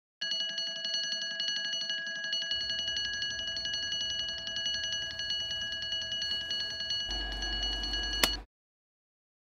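Sentry digital clock-radio alarm ringing in a shrill, rapidly pulsing electronic beep. It cuts off abruptly with a sharp click about eight seconds in.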